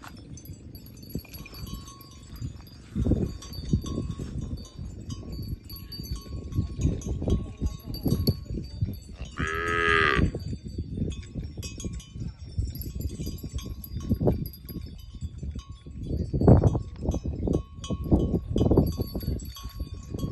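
Zebu cattle in a field: one moos once, about halfway through, a call about a second long that rises and then falls. Irregular low thumps and rustles run throughout, the loudest near the end.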